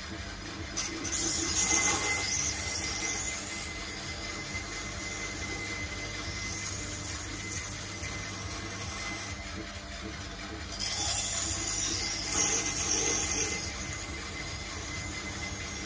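Knife-sharpening grinder running steadily while a steel knife blade is drawn through its 400-grit wheel twice, each pass a couple of seconds of grinding hiss over the motor's hum. This is the 400-grit stage, working out the scratches left by the coarser wheel.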